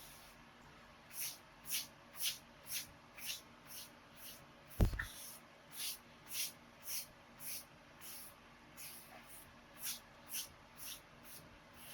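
Scouring pad scrubbing a wooden cutting board in regular strokes, about two a second, each a short rasping hiss. A single sharp knock about five seconds in.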